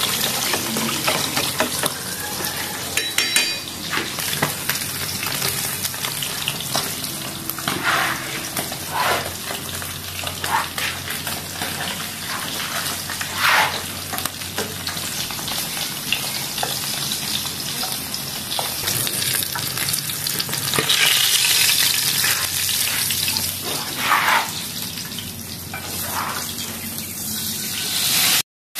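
Tilapia frying crisp in hot oil in a pan: a steady sizzle, with a few short scrapes and knocks as the fish are turned with chopsticks. The sizzle grows louder about three quarters of the way through.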